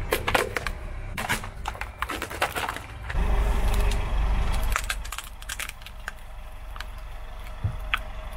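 Objects cracking and snapping as a car tyre rolls over and crushes them: a quick run of sharp cracks, then a low rumble about three seconds in, then a few scattered small cracks.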